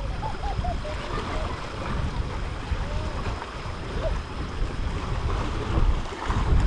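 Wind buffeting the microphone: a low, uneven rumble, gusting louder near the end.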